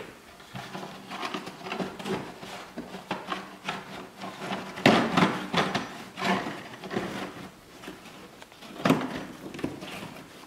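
Plastic wheel-well inner liner being pushed and tucked into place by hand, rubbing and clacking against the body and vent. Irregular scraping, with sharper knocks about five and nine seconds in.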